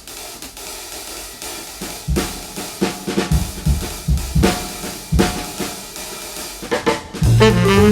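Background music: a drum-kit beat of kick, snare and hi-hat hits, with a saxophone melody coming in loudly near the end.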